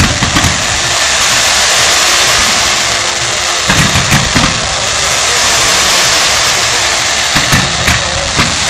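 Fireworks display: a steady fizzing hiss from white comets and fountains, broken by clusters of sharp thumps and bangs about half a second in, around four seconds in, and again near the end.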